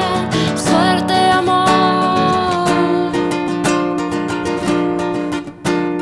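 A woman singing long held notes over a strummed acoustic guitar; about halfway through the voice stops and the guitar strums on alone in quick strokes.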